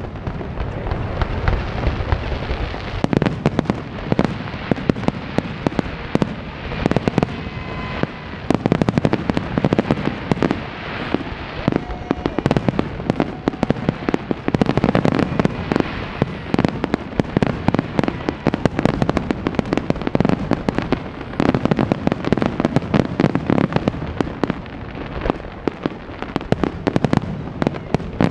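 Aerial firework shells bursting in a dense, nearly continuous barrage: many sharp bangs and crackles in quick succession, overlapping one another.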